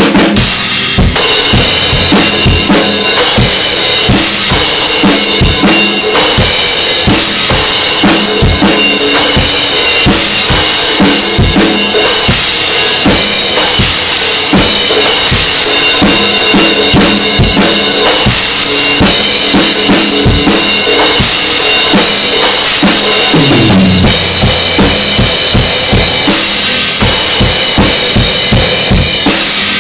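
Acoustic drum kit played loud and busy: fast bass drum and snare strokes with rim shots, under a continuous wash of crash and ride cymbals.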